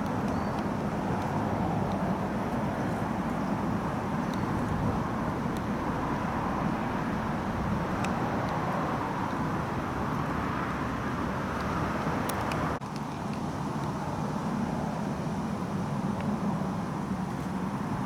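Steady hum of distant city road traffic, even and unbroken apart from a brief dip about thirteen seconds in.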